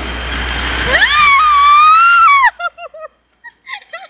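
A rider lets out a long, high-pitched scream that rises and holds over the loud rushing rumble of sliding down a long roller slide. The scream and the rumble cut off together about two and a half seconds in, and short snatches of voice follow.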